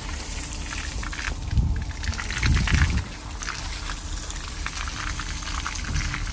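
Sea water rushing and splashing. Low buffeting wind on the microphone is heard during the first three seconds and then drops away.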